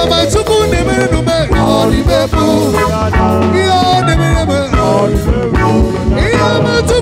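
A live band playing: drum kit keeping a steady beat under a bass guitar and an electric lead guitar playing a melody.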